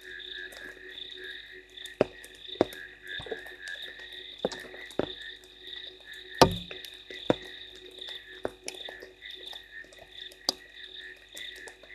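Chorus of many frogs calling in rapid, steady pulses. Scattered sharp taps cut through it, with one louder knock about six and a half seconds in.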